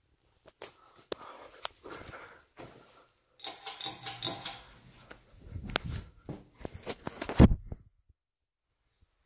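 A run of clicks, rustles and knocks in a small room, with one loud thump near the end.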